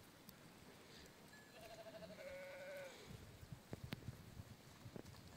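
A sheep in a grazing flock bleats faintly once, a drawn-out call that falls slightly in pitch, about two seconds in. Otherwise it is near quiet, with a few soft clicks.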